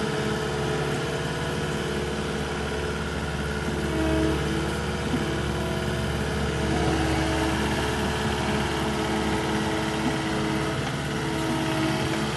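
Caterpillar skid steer's diesel engine running steadily, with a higher whine that comes and goes every few seconds.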